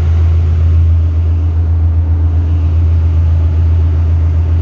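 Loud, steady low hum of ship engine-room machinery running, with no change in pitch or level.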